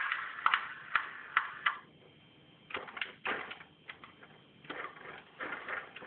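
Scattered clicks and short rattles from a plastic toy van being handled, with a brief lull about two seconds in.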